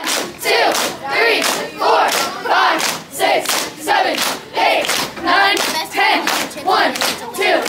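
A cheer squad shouting together in unison on a steady beat, a little under two shouts a second, with a sharp hit on each beat as they drill their motions.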